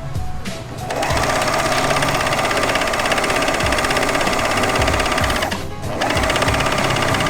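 Singer 14SH754 four-thread overlock machine running at speed, stitching a test seam. It starts about a second in, stops briefly just before six seconds, then runs again.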